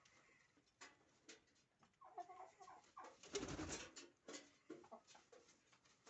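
Domestic turkeys calling faintly: a run of short broken calls about two seconds in, then a louder, noisier burst a second later, with scattered clicks and taps around them.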